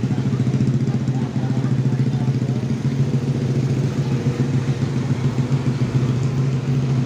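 An engine idling steadily, with a fast, even firing beat.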